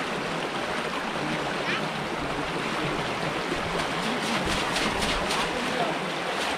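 Fast-flowing water rushing steadily through a narrow stone-walled channel, with splashing about four to five seconds in as a wading man pulls a net up out of the current.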